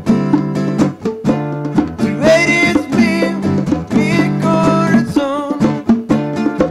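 Background music: a plucked guitar playing a steady pattern, with a voice singing a held, wavering melody through the middle.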